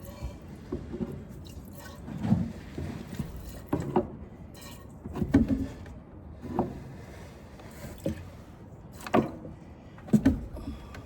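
Hand-milking a goat: squirts of milk hitting the milk pan one by one, irregularly, about one a second.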